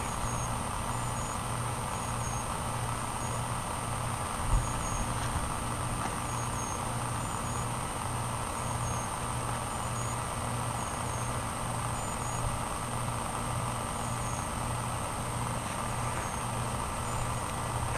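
A steady low mechanical hum from a running motor, pulsing regularly, with a thin steady whine above it. A single thump about four and a half seconds in.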